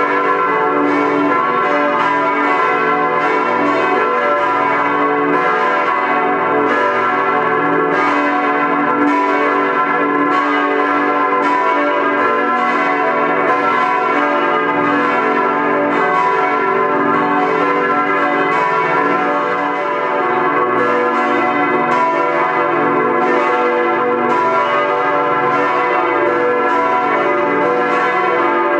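Several church bells in a brick church tower ringing together, a continuous overlapping peal of strikes with long, humming tones.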